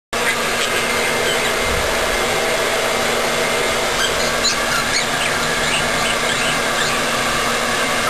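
Hair dryer blowing steadily, with a budgerigar warbling in short high chirps over it from about four seconds in.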